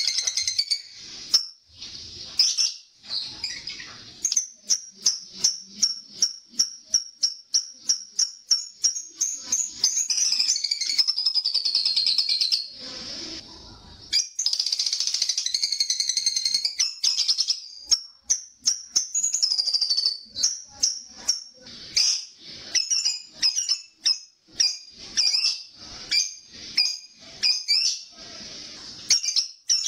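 Lovebird singing its 'ngekek', the long high-pitched chattering trill. Long unbroken stretches of trill alternate with rapid runs of short, sharp separate chirps.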